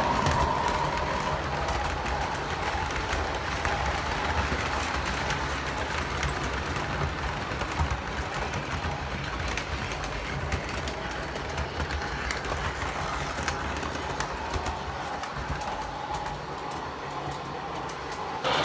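O scale model freight cars rolling past on three-rail track: a steady rumble of metal wheels on the rails with fine clicking over the rail joints, slowly getting quieter toward the end as the train passes. A motor whine from the locomotives fades out about a second in.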